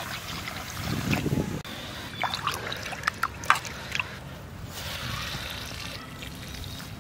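Broken rice being washed by hand in an aluminium pot: water is poured in, then the grains are swished and rubbed in the water, with a few sharp clicks. Near the end the cloudy rinse water is poured out.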